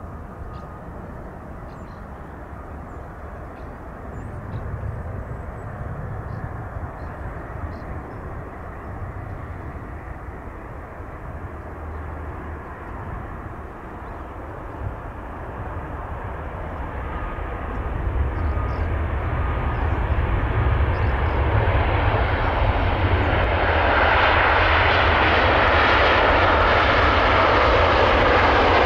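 Airbus A350-900's Rolls-Royce Trent XWB turbofans on landing approach: a steady jet rush with a low rumble, growing much louder in the second half as the airliner nears, then holding loud.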